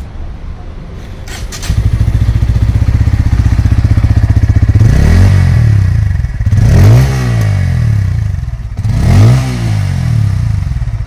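Bajaj Pulsar P150's 149 cc air-cooled single-cylinder engine catches about two seconds in and idles with an even pulse. It is then revved three times through its underbelly exhaust, each rev rising and falling back to idle.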